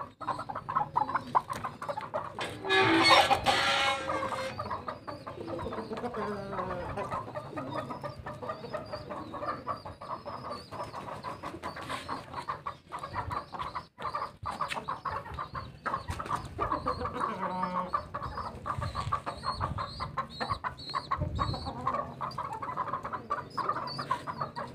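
Aseel chickens clucking, with one loud drawn-out crow from the rooster about three seconds in.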